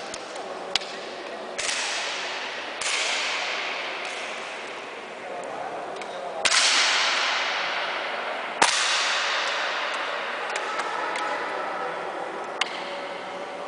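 Break-barrel air rifles firing: a few sharp cracks, the loudest two about six and a half and eight and a half seconds in. Each crack is followed by a long echoing decay in the gymnasium hall, with a few small ticks between shots.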